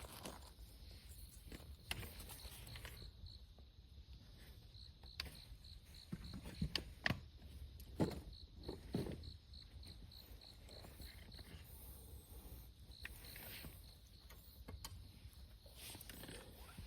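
An insect chirping in an even, high pulse, about four chirps a second, broken off briefly and then running on for several seconds. A few sharp clicks and soft knocks of handling sound over it near the middle.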